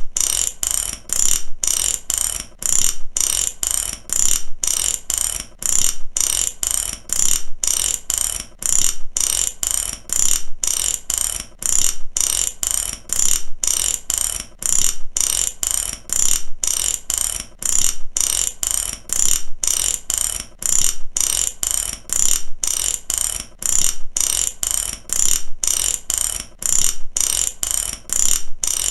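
Mechanic's ratchet wrench clicking in repeated strokes, about one and a half a second, each stroke a quick run of sharp clicks, with an even rhythm throughout.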